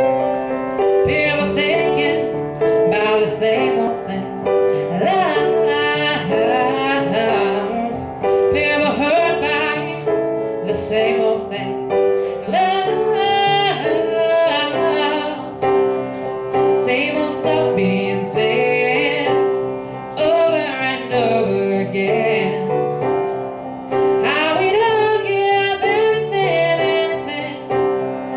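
A young woman singing an original pop song over piano accompaniment, her voice coming in about a second in over the piano chords.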